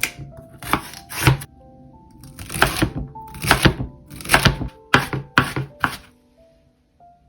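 Kitchen food-preparation sounds: a run of irregular short knocks and scrapes, like chopping or working ingredients in a bowl, that stop about six seconds in. Soft keyboard background music plays under them.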